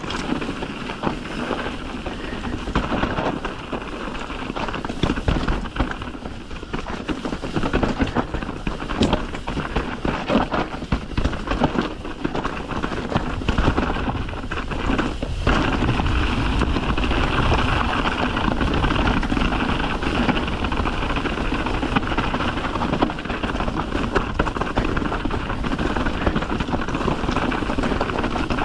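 Mountain bike riding down a rocky dirt trail: tyres crunching over stones with frequent clattering knocks from the bike. From about halfway through, a steadier rush of wind on the microphone comes in.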